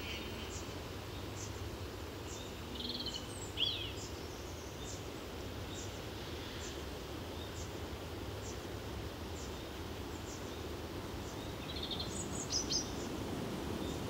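Outdoor countryside ambience: a steady low background rumble with a few short bird chirps about three seconds in and again near the end, and faint, evenly spaced high ticks.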